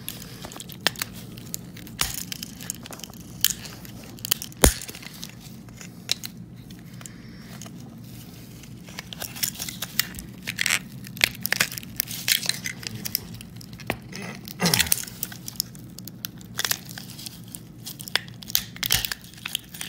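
Flathead screwdriver prying and scraping at a shock collar's plastic housing and circuit board: scattered sharp clicks, cracks and scrapes, the loudest crack about four and a half seconds in.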